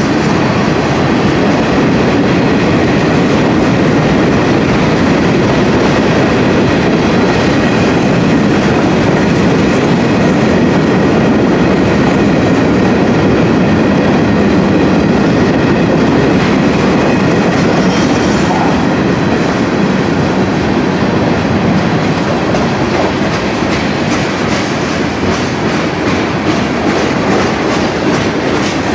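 Freight train of tank cars and covered hoppers rolling past close by: a loud, steady rumble of steel wheels on the rails, with the clickety-clack of the wheel trucks.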